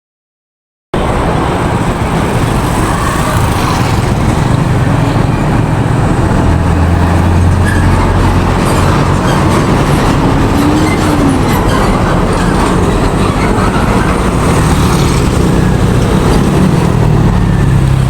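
Road traffic with vehicle engines running, a loud steady rumble that starts abruptly about a second in.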